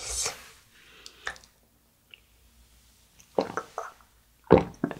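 Cup jelly being sucked out of its small plastic cup, heard close up: a few short wet slurps and squishes, starting a little over three seconds in, the loudest near the end.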